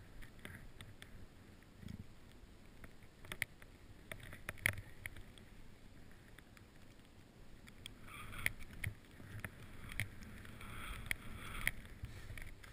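Deep powder snow swishing softly under a rider gliding slowly downhill through the trees, with sharp clicks and knocks now and then. The hiss of sliding snow grows louder and busier from about eight seconds in.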